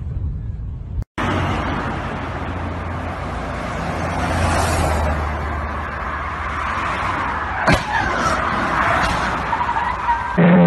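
Steady highway traffic and road noise. About three-quarters of the way through comes one sudden loud crash of a car collision, followed by a wavering squeal.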